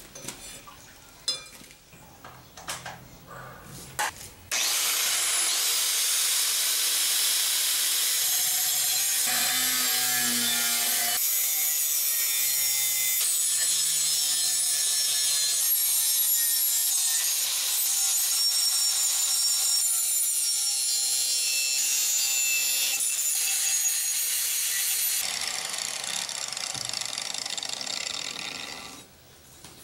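Handheld angle grinder grinding the edge of a forged leaf-spring steel blade clamped in a vise: a loud, steady grinding hiss that starts suddenly about four seconds in, eases somewhat a few seconds before the end and then stops. Before it, a few short knocks as the blade is handled.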